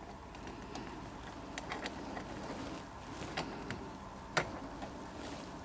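A few small metallic clicks and taps as a retaining pin is worked through the end of a steel wheelbarrow axle by hand, over quiet room tone. The sharpest click comes about four and a half seconds in.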